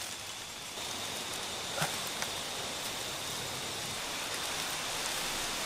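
Steady outdoor background hiss with a faint, continuous high-pitched tone; no distinct events stand out.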